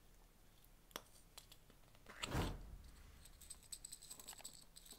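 A small plastic jar of sequins being opened and emptied: a sharp click about a second in, a louder rattle as the sequins are shaken out, then a patter of many small light clicks as they land on the slime and plastic plate.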